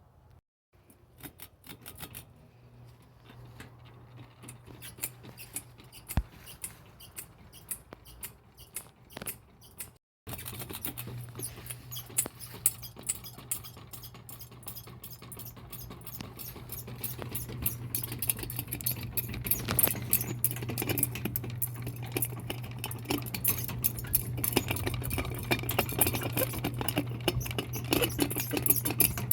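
Small 30-inch Litex Vortex ceiling fan running: a steady motor hum with rapid, irregular clicking and rattling. After a brief dropout about ten seconds in, the clicking grows denser and louder.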